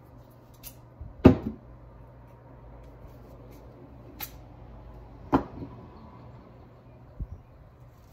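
Sharp knocks from handling things at a kitchen counter: the loudest about a second in, another about five seconds in, and a few fainter clicks between, over a faint steady low hum.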